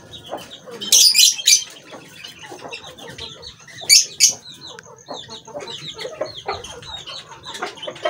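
A mix of caged birds calling: small cage birds give many quick high chirps throughout, with two loud shrill bursts about a second in and about four seconds in. Aseel hens cluck lower down beneath them.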